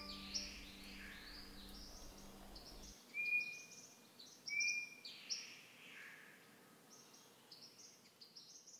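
Faint birdsong: a run of short, high chirps, with two clear whistled notes about three seconds and four and a half seconds in.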